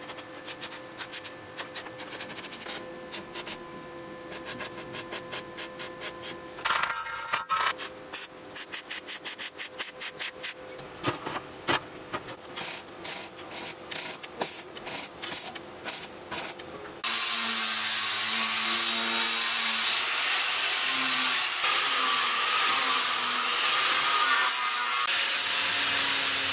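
Stick arc welder crackling in short, irregular bursts as welds are laid on a steel tube frame. About two-thirds of the way through, an angle grinder starts abruptly and runs steadily, grinding down the welds.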